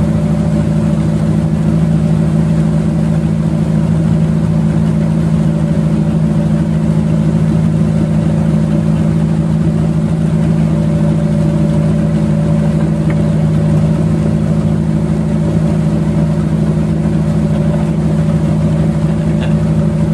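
Boat engines running steadily at cruising speed, a constant low drone with no change in pitch, over the rush of churned river water.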